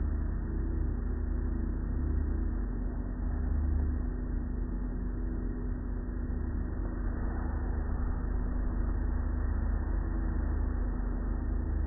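Automatic car wash working over the car, heard from inside the cabin: a steady low rumble of the wash machinery, cloth curtains and water spray on the body, gently swelling and fading.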